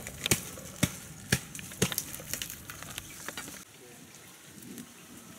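Sharp cracks and crackling as the fibrous leaf sheaths of a coconut palm's crown are broken and pried apart, about two cracks a second for the first three and a half seconds, then quieter rustling.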